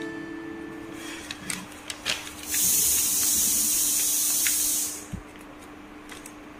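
A sheet of origami paper being handled and creased between the fingers. There are a few light crinkles, then a steady paper-rubbing hiss for about two and a half seconds.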